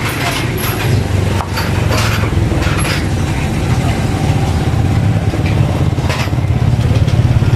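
A Yamaha NMAX V2 scooter's single-cylinder engine is being started. It turns over and runs unevenly but won't keep going on its own. This is a hard start with no idle, which the mechanic puts down to the idle speed control (ISC) needing calibration.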